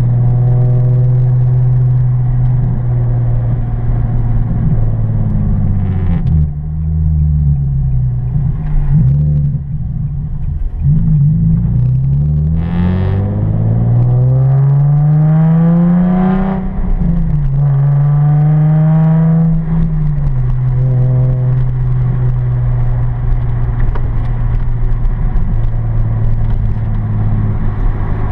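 Nissan 370Z's 3.7-litre V6 through an aftermarket exhaust with resonated test pipes, a 3-inch Y-pipe and the rear resonator deleted, heard from inside the cabin while driving. It holds a steady drone, then midway pulls up in pitch twice, dropping sharply between the pulls as a gear is changed. It settles back to a steady, lower drone.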